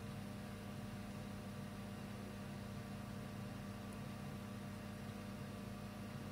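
A steady low hum over a faint hiss.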